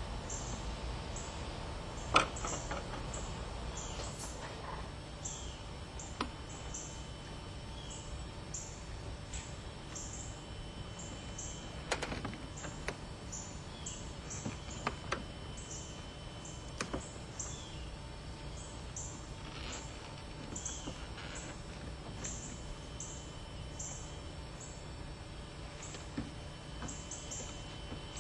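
Scattered sharp clicks and knocks from hands working a car's plastic grille and fascia clips loose, the loudest about two seconds in and again near the middle. Under them runs a steady low background noise, with faint high chirps repeating about once a second.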